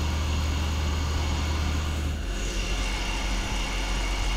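YCM B8-SY CNC lathe running with its spindle turning while a right-handed roughing insert cuts a steel part dry. About two seconds in, the low hum shifts lower and a steady high whine comes in.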